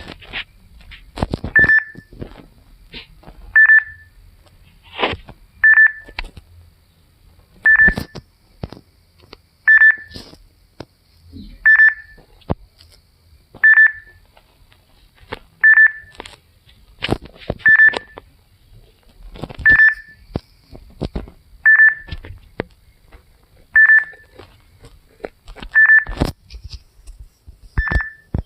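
A short, high electronic beep repeating about every two seconds, with scattered clicks and knocks between the beeps.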